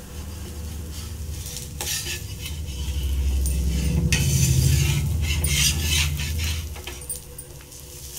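Flat steel spatula scraping under a cooked dosa on a hot cast-iron tawa, loosening it to fold and lift it, with a light sizzle of oil underneath. The scraping strokes come thick and loudest in the middle, then ease off.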